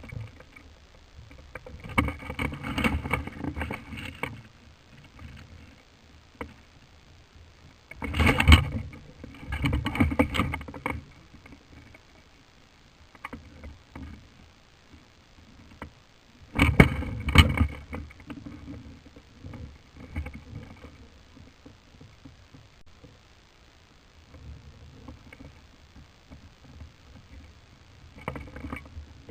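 Several bursts of rustling and crackling close to the microphone, each lasting one to three seconds, with quieter stretches between them: movement and handling noise.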